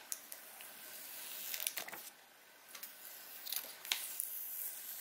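Clear plastic protective film being peeled off an iPhone X's glass screen: a faint crackling hiss with a few small clicks, easing off briefly about two seconds in before the peeling goes on.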